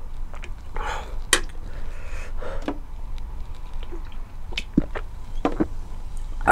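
Close-up eating noises of a person eating spicy noodles: chewing and short slurps, with small clicks and taps scattered throughout.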